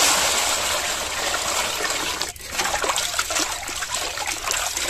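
Water pours from a vessel into a steel tub of raw mutton pieces. About halfway through the pouring stops, and hands slosh and splash the meat around in the water to wash it.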